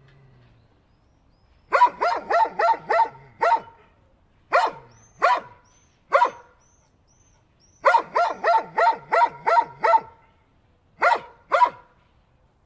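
A dog barking in quick runs: a rapid string of barks, then a few single barks, then another rapid string, and two last barks near the end.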